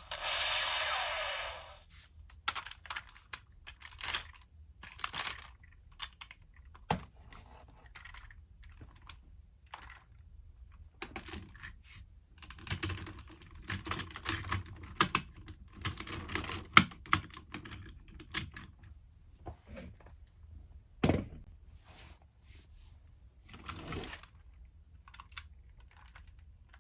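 Plastic parts of a DX Siren Builder combining robot toy clicking, knocking and snapping as they are handled and fitted together, with clusters of quick clicks in the middle. It opens with the toy's electronic sound effect from its speaker, which cuts off about two seconds in.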